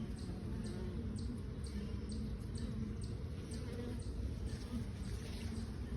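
Honeybees buzzing around an open hive, a low hum with individual bees' wingbeat tones wavering in and out.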